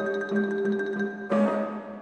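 Marimba and symphony orchestra playing softly: steady repeated mallet notes over held tones, with a fresh attack a little over a second in, dying down near the end.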